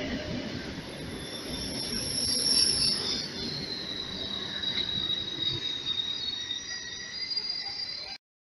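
Passenger train rolling past close by on a station track: a steady clattering rumble with a thin, high wheel squeal that slowly falls in pitch, cut off abruptly near the end.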